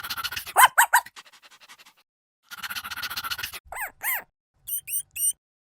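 An animal calling: two bursts of rapid chattering, each followed by short arched squeaks, then three brief high squeaks near the end.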